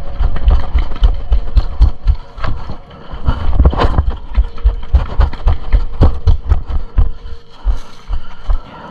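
Rapid, irregular thumps and rattles of running footfalls and jostling gear close to a body-worn camera, as an airsoft player sprints to cover.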